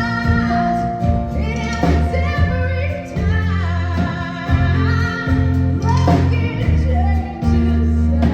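Live band playing a song, with a lead vocal singing a melody over sustained bass notes and accompaniment.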